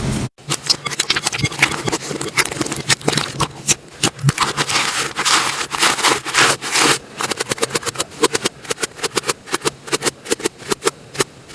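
Slime being squished and stretched by hand, giving dense, irregular crackling and popping clicks.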